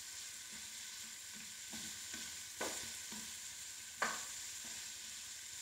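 Chicken pieces sizzling faintly in a nonstick frying pan while a wooden spatula stirs them, scraping the pan, with two sharper knocks about two and a half and four seconds in. The yogurt coating is cooking dry in the ghee.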